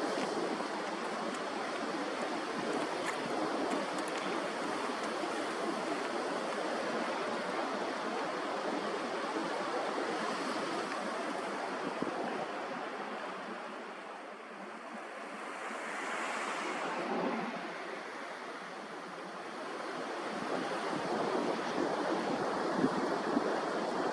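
Steady wash of waves on open water mixed with wind, with no distinct calls or tones. It eases a little about midway, swells briefly, then builds again toward the end.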